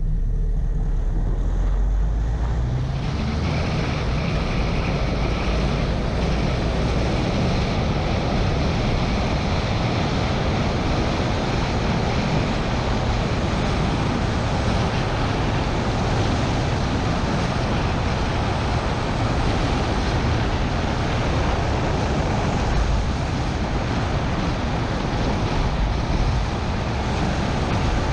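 Car driving on a country road, heard from a bonnet-mounted camera: wind buffeting the microphone over a steady rumble of engine and tyres. The noise fills out about three seconds in as the car comes out of a junction onto a straight and gathers speed.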